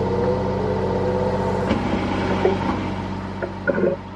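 Zeny portable top-load washing machine running: its motor hums and rises in pitch over the first second and a half as the drum turns. A few short knocks come near the end.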